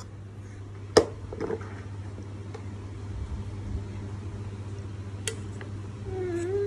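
A steady low hum with a sharp knock about a second in and a fainter click later. Near the end an infant gives a short, wavering whimper.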